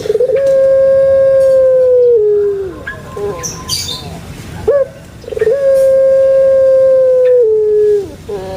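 Puter pelung dove (Streptopelia risoria) giving its long drawn-out crow-coo twice. Each call is a short opening note, then a steady held note of about two seconds that steps down to a lower pitch and trails off. A third call begins right at the end.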